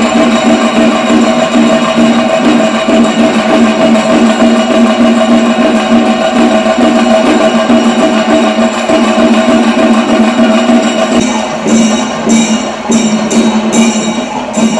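Music with drums and a steady droning tone held throughout. From about eleven seconds in, a run of sharp, bright percussive strokes joins in.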